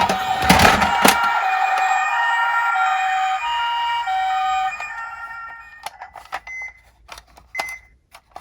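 A toy ambulance's electronic two-tone siren, switching back and forth between a high and a low note about every half second, with a few sharp plastic clicks and knocks early on. The siren stops a little past halfway, and scattered light clicks and taps follow.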